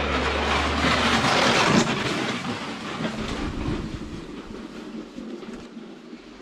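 Wooden sled sliding down the iced bobsleigh track, its runners scraping and rumbling on the ice. It grows loudest about two seconds in as it comes through, then fades away.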